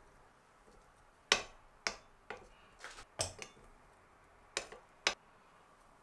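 Wooden chopsticks clicking and tapping against a ceramic plate as cucumber strips are set down on it: about eight sharp, separate clicks, the loudest a little over a second in.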